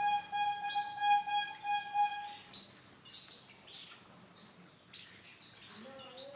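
Female Isabel canary chirping: short rising chirps repeated every half second or so. For the first two and a half seconds a steady, pulsing buzz-like tone with many overtones runs under the chirps, then stops.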